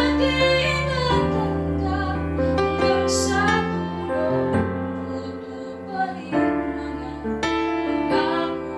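A woman singing a slow Tagalog song solo with instrumental accompaniment, her voice carrying the melody in long held notes.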